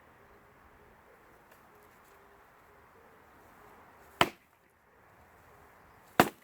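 Axe splitting oak firewood logs: two sharp chopping strikes about two seconds apart.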